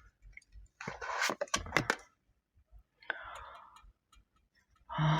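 Tarot cards being handled: a quick run of crisp snaps and rustling about a second in, then a single click and a short rustle around three seconds.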